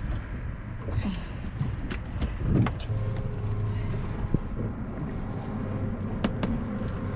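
A boat's motor running with a steady low hum that grows stronger about three seconds in, with wind buffeting the microphone. A few sharp knocks come from the red drum being handled on the boat.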